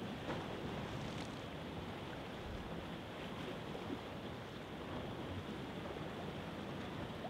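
Steady rushing sea ambience of waves and wind, with no single wave standing out.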